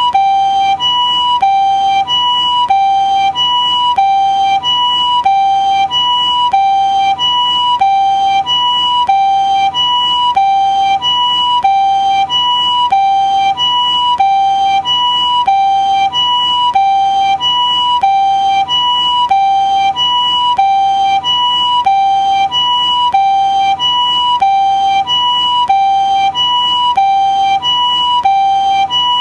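Japanese ambulance two-tone "pee-poh" siren, switching evenly between a higher and a lower tone about every two-thirds of a second. Steady in pitch and loudness throughout, with no rise or fall of a passing vehicle.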